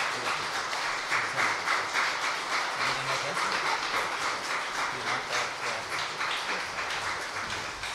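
Congregation applauding, a dense patter of many hands clapping that thins out near the end.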